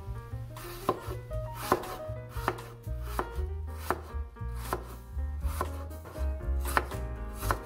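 Chef's knife chopping green apple on a wooden cutting board: crisp knocks of the blade through the fruit onto the board, about one cut a second, over soft background music.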